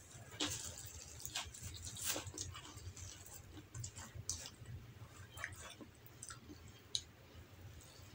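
Close-up mouth sounds of a person chewing a mouthful of basmati rice: soft, irregular wet clicks and smacks, with fingers gathering rice on the tray between bites.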